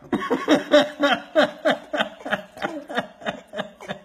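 An adult laughing hard off camera in a long run of rhythmic 'ha-ha' pulses, about three a second, starting suddenly and tailing off.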